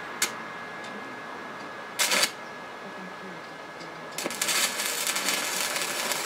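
Stick (arc) welding: the electrode is struck against the metal, giving a short crackling burst about two seconds in, then the arc catches and crackles and sputters steadily from about four seconds in.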